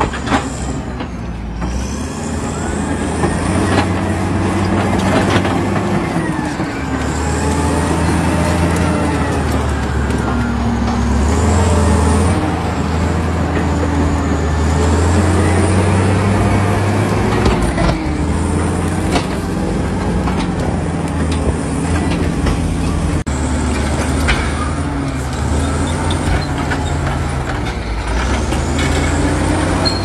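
Caterpillar D8R bulldozer working under load: its diesel engine runs heavily, its pitch rising and falling as it works, over the clank of its steel tracks.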